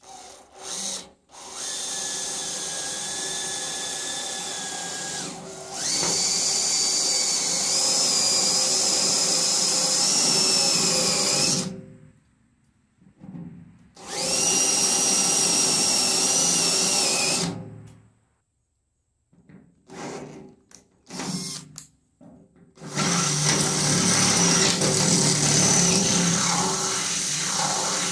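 Cordless drill running a step bit into a thin aluminum column. It runs in four runs of a few seconds, with a few quick trigger taps between the third and fourth. The motor whine is steady within each run and higher-pitched from the second run on.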